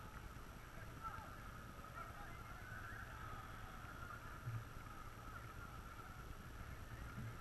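Faint, distant shouts and calls from footballers across a floodlit pitch, blending into a wavering hubbub, with a low rumble underneath.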